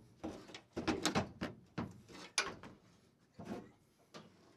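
A pickup truck tailgate clunking and knocking on its hinge as it is wiggled side to side and pulled off its hinge pins, in a quick, irregular series of short knocks that thins out toward the end.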